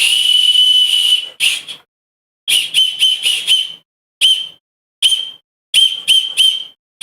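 Dog whistle blown in a series of blasts: one long, steady, high-pitched blast of about a second, then short breathy toots in groups of one to four with brief silences between them.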